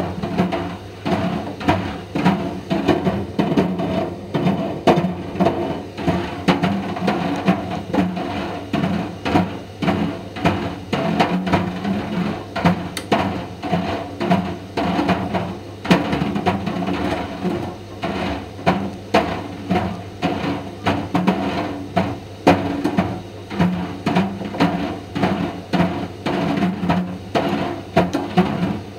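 Indesit IDV 65 tumble dryer running with a steady motor hum, while a Mister Steamy dryer ball tumbles in the drum and knocks irregularly, about two or three times a second.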